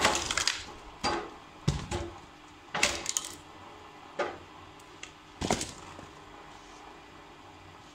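A series of sharp wooden knocks and cracks, about six in the first six seconds, over a faint steady hum: logs being split and handled at a homemade log splitter.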